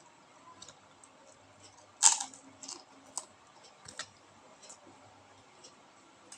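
Close-up eating sounds: one loud, sharp crunch about two seconds in, followed by a few lighter crunches and clicks.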